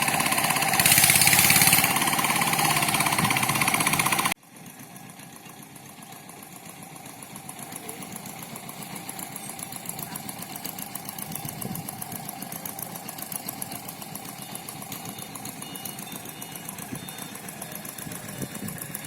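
A small engine running with a loud rushing noise, cut off suddenly about four seconds in. After the cut comes a quieter, steady engine sound with a fast, even ticking that slowly grows louder.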